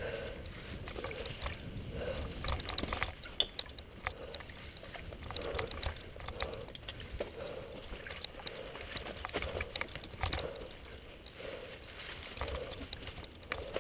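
Mountain bike rolling along a singletrack trail covered in dry fallen leaves: tyres crunching through the leaves, with many sharp rattling clicks from the bike over bumps and a soft low sound repeating about once a second.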